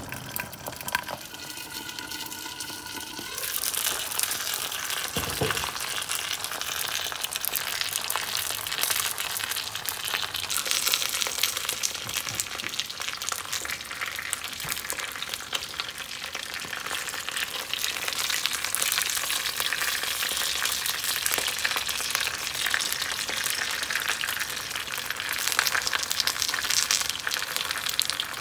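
Food frying and sizzling in hot oil in a pan, a dense crackling hiss that sets in about three and a half seconds in and runs on steadily.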